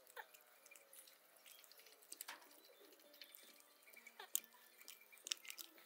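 Faint, scattered wet clicks and squelches of hands mixing and rubbing a whole duck in its marinade in a basin.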